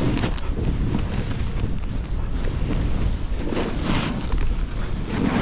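Wind buffeting an action camera's microphone while snowboarding downhill through powder, with the hiss of the board sliding through the snow, which swells briefly a little after halfway.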